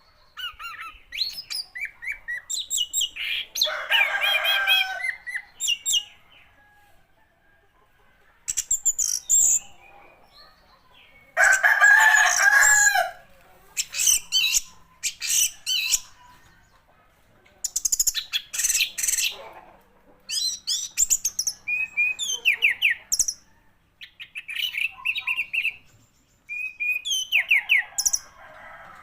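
Orange-headed thrush (anis merah) singing: quick, varied chirps and whistles in phrases of one to three seconds with short pauses between them. The fullest, loudest phrases come about four and twelve seconds in.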